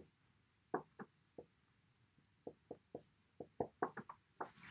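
Dry-erase marker writing on a whiteboard: a string of short, faint strokes and taps, sparse at first and coming thick and fast over the last two seconds.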